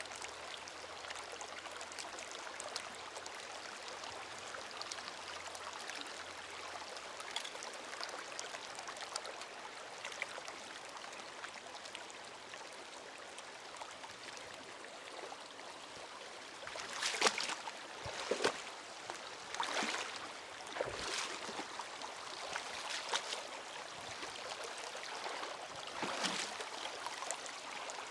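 Creek water running and babbling over rocks, a steady rush. In the second half, about half a dozen louder sudden noises break in, irregularly spaced.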